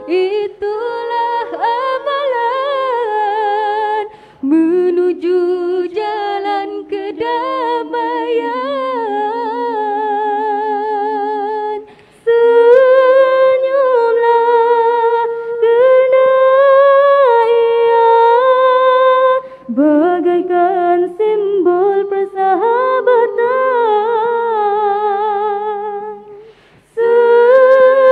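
Women's nasyid group singing a cappella in close harmony: a lead voice with vibrato over sustained backing voices. The song comes in phrases broken by short pauses.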